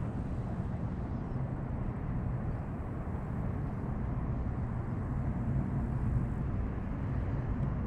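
Wind blowing across the microphone: a steady low rumble with no distinct events.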